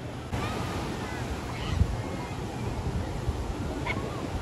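Steady surf with a few short, high calls over it, one near the end.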